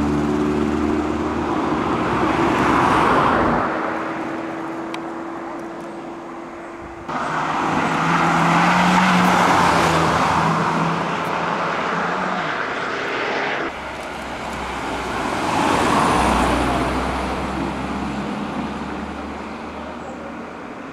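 Cars driving past one after another. Each car's engine and tyre noise swells as it nears and fades as it goes on, and one of them is a Fiat Punto. The sound cuts off abruptly twice between passes.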